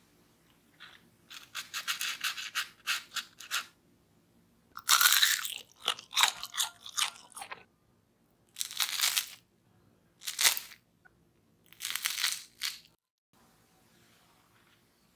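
Crispy fried potato snacks crunching in five bursts of crackling, with short pauses between them.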